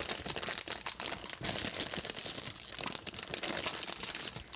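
Clear plastic bag crinkling and rustling as hands dig through dried baby squid inside it: a dense, continuous run of small crackles.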